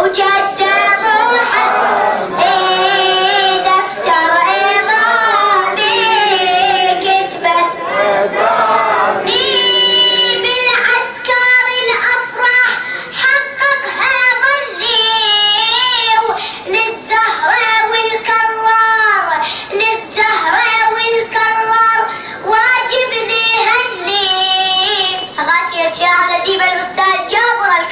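A voice singing Arabic devotional verses in long, melismatic lines, with wavering, ornamented held notes and short breaks between phrases.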